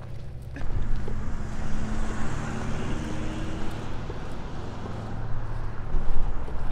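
Road traffic noise: a car engine running with tyre hiss, coming in suddenly about half a second in.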